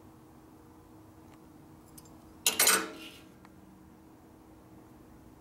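A brief clatter of small metal objects, like hand tools or parts knocking together, a quick cluster of ringing clinks about halfway through, over a faint steady hum.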